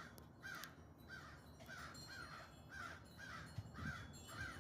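A flock of crows cawing faintly and rapidly, about two to three harsh caws a second. These are alarm and mobbing calls raised at a hawk or eagle perched in their tree.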